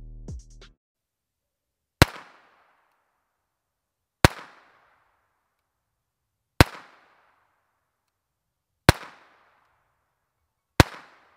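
Five unsuppressed .22 LR pistol shots, about two seconds apart, each a sharp crack with a short echoing tail, fired with CCI standard velocity ammunition. The shots are the unsuppressed baseline and meter at about 155 dB each.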